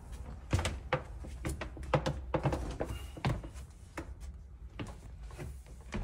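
Footsteps going down a flight of stairs into a basement: a run of irregular knocks and thumps, a few a second.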